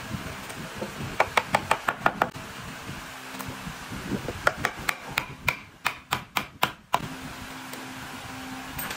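Wooden slats being knocked down into the mortise slots of a wooden bed-frame rail with a round wooden stick: sharp wood-on-wood knocks in two quick runs, one about a second in and a longer one about halfway through.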